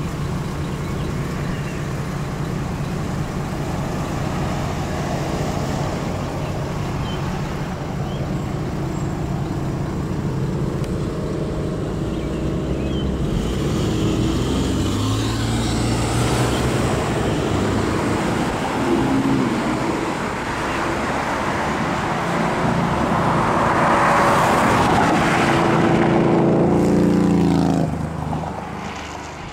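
Road traffic at an intersection: cars driving by steadily. In the last few seconds a vehicle passes close by, loud at first, its engine pitch falling as it moves away.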